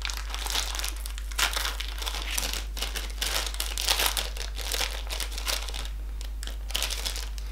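Magnum ice-cream bar's shiny plastic wrapper being crinkled and torn open by hand: a dense, irregular run of sharp crackles, with a few louder ones.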